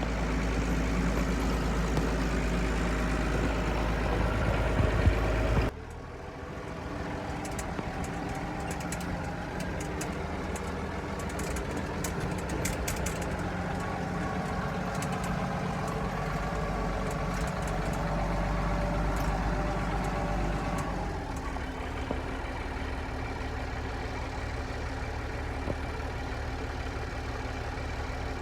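Old Massey Ferguson tractor engines running steadily, in clips cut together, with an abrupt change about six seconds in and another about twenty-one seconds in. A run of sharp clicks comes shortly after the first change.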